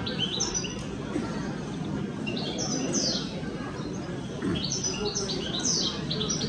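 Caged show birds chirping and singing in short repeated phrases, in three bursts, over a steady murmur of crowd chatter.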